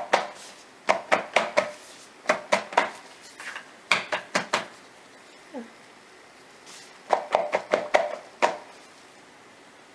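Mold full of freshly poured soap being tapped down on a work surface to settle the soap: groups of three to six hard knocks in quick succession, pausing for about two seconds near the middle.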